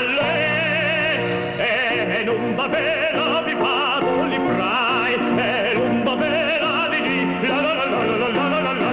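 A man singing in an exaggerated operatic style with a wide, wobbling vibrato over held chords of instrumental accompaniment.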